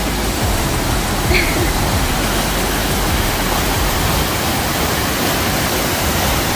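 Steady rush of a large, tiered waterfall pouring over rocks, heard up close.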